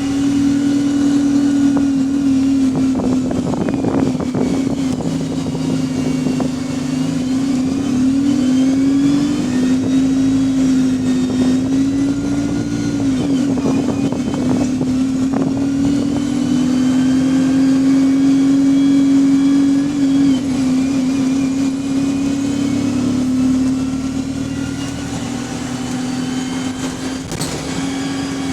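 Bus with a Voith automatic gearbox under way: a steady drivetrain hum that dips and rises slightly a few times as the bus changes speed, with a few short rattles about 4, 9 and 15 seconds in.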